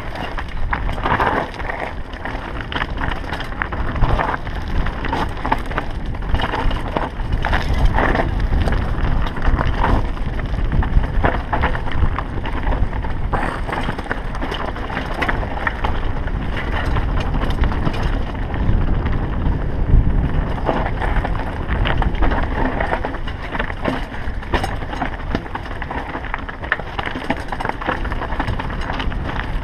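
Downhill mountain bike rolling fast over loose rock and gravel: a continuous rumble of tyres on stones with wind buffeting the camera microphone, and frequent sharp rattles and knocks as the bike jolts over rocks.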